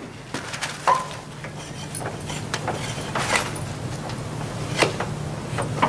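Irregular light knocks and scrapes of objects being handled, a sharper knock near the end, over a steady low hum.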